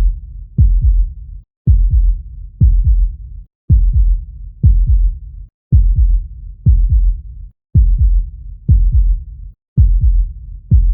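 Human heartbeat sound: deep, low thuds in a steady rhythm of about one beat a second, each beat fading out into a low rumble before the next.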